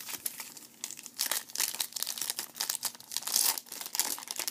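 A foil Bowman Platinum trading-card pack being torn open, its wrapper crinkling in a dense run of sharp crackles that is loudest about three and a half seconds in.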